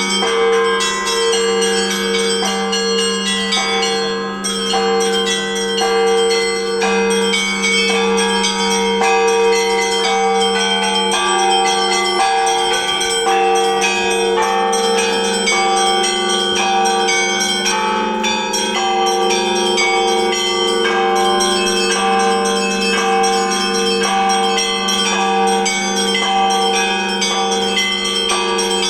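Orthodox church bells ringing the Paschal (Easter) peal: smaller bells struck in quick, dense patterns over the steady hum of the larger bells.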